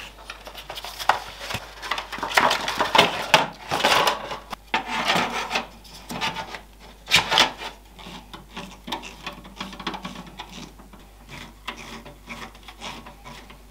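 Irregular scraping, rubbing and clicking of hands handling a Noctua case fan and the PC case panel as the fan is fitted as an exhaust fan.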